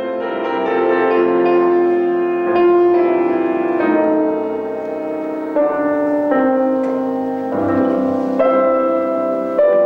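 Grand piano playing a slow classical passage, its notes and chords changing every second or so.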